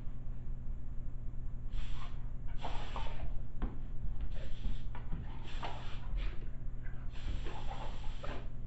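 Short blasts of compressed air hissing from an air compressor's blow nozzle, five in a row, the last one the longest, over a steady low hum.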